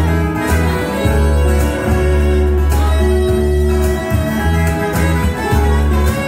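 Live country band playing an instrumental passage: a saxophone plays a sustained melody line over acoustic guitar, bass and a steady beat.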